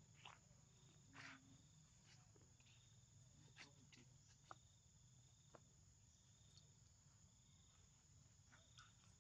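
Near silence: faint steady high-pitched insect chirring, with a few soft ticks scattered through.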